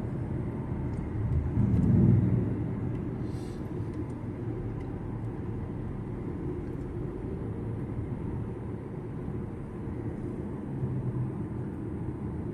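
Steady road and engine rumble of a moving car, swelling briefly about two seconds in.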